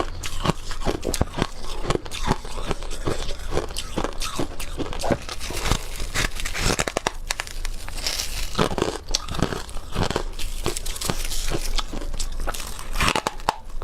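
Dry freezer frost chunks being bitten and chewed close to the microphone: a steady run of crisp, squeaky crunches, several a second.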